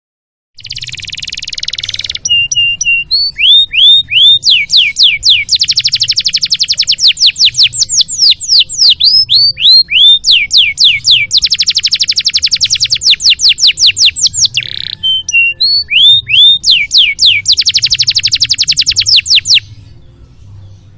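Domestic canary singing a long, loud song. It opens with a harsh raspy note, then runs of quick downslurred whistles alternate with very fast rolling trills. A faint low hum sits underneath.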